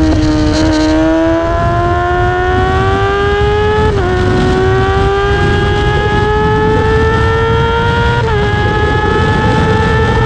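Onboard motorcycle engine at full throttle on a race track, climbing steadily in pitch with a sudden drop at each upshift, about 4 and 8 seconds in, over rushing wind noise.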